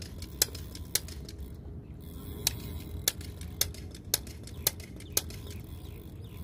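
A series of sharp, evenly spaced clicks, about two a second, pausing once for about a second and a half, over a steady low rumble.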